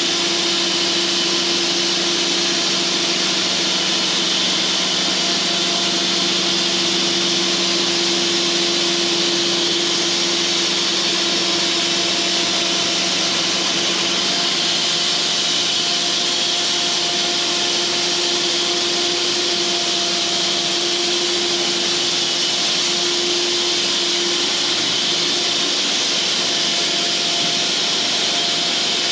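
Cooks band sawmill running steadily with the bandsaw blade cutting lengthwise through a log, a dense, even hiss over a steady hum.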